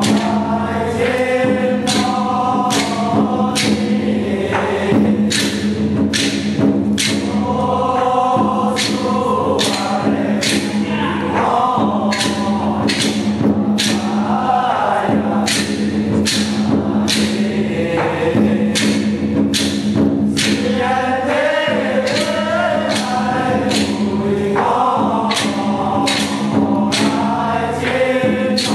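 Temple ritual chanting: voices chanting in unison over a sustained low drone, with a steady beat of sharp percussion knocks about twice a second.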